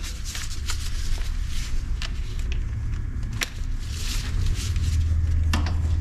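Cordless power tool motor running steadily as it spins out a brake caliper bolt, louder from about halfway and stopping just after the end, with a few light clicks and knocks of the tool and socket before it.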